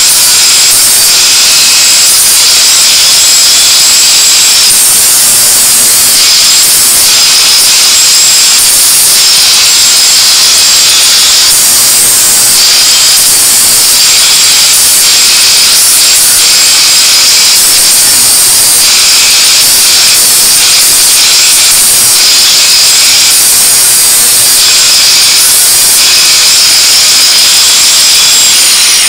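Angle grinder grinding metal: a loud, steady hiss with a high whine, the grinding noise swelling and easing every second or so as the disc works the piece.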